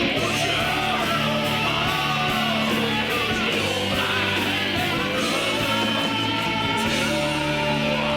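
Rock song with guitar, a steady bass line and a singing voice.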